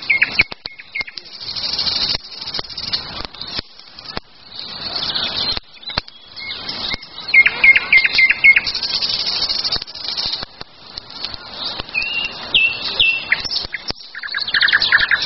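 Songbirds chirping and trilling, with a burning campfire crackling and popping in short sharp clicks throughout.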